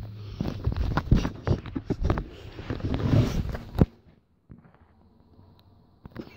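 Rustling, rubbing and knocking from a phone being handled and moved down to the floor, for about four seconds, then quieter with a few soft taps.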